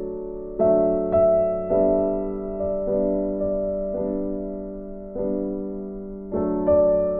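Background music: a slow, gentle piano piece with chords struck every second or so, each fading before the next.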